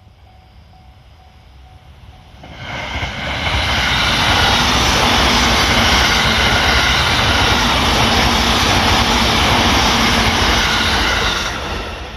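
Electric limited express train passing over a level crossing at speed: a loud steady rush of wheels and air that swells in about two and a half seconds in, then fades near the end. The crossing's warning bell rings faintly before the train arrives.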